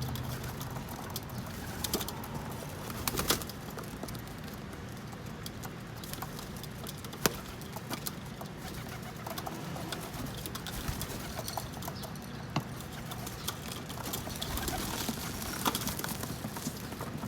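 Pigeons feeding on sunflower seeds: many scattered sharp taps and clicks of beaks and feet on the roof, with some soft cooing.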